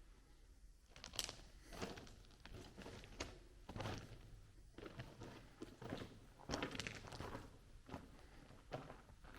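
Footsteps crunching on the gravel track bed of a railroad tunnel, an uneven walking pace of about one to two steps a second.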